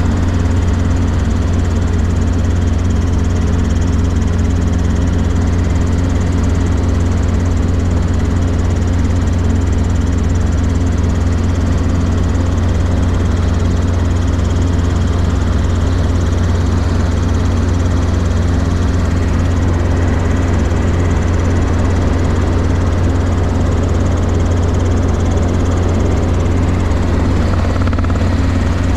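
Robinson R22 Beta II helicopter in flight: a steady drone of rotor and four-cylinder Lycoming piston engine, even in level.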